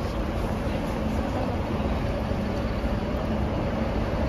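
Steady city vehicle noise: a low rumble with a steady engine or motor hum.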